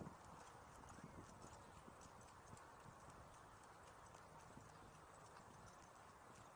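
Faint footsteps on a concrete sidewalk while walking a dog, light ticks about two to three a second over a quiet outdoor hiss.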